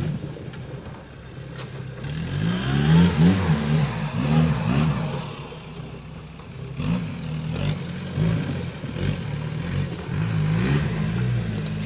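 Off-road race buggy's engine revving hard in repeated surges as it claws up a steep muddy slope, its pitch rising and falling with each burst of throttle.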